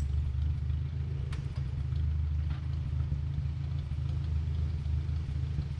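An engine running steadily at low speed, with a few light clicks and rattles over it.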